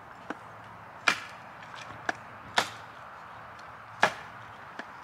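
Four sharp, irregular chopping strikes with a few lighter knocks between.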